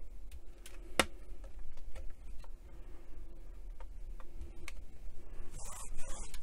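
Scattered small clicks and knocks as a radio case is handled and tilted, the sharpest about a second in. Near the end a polishing cloth starts rubbing back and forth over the case at about three strokes a second.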